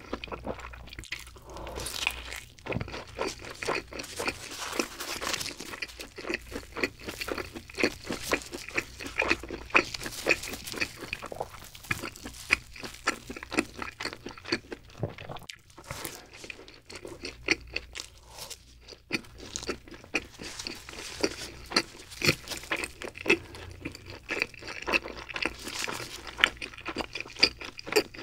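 Close-miked chewing of cheese pizza and its crust: a steady, irregular run of small crunches and wet mouth sounds as bites are taken and chewed.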